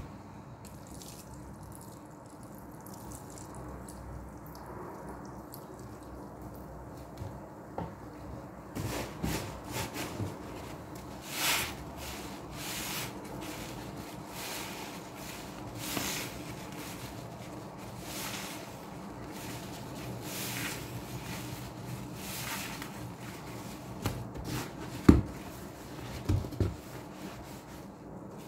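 Soapy foam sponges being squeezed and squished by hand in a plastic tub of sudsy water, with wet squelches every second or two after a quiet first several seconds. A sharp knock near the end, followed by two smaller ones.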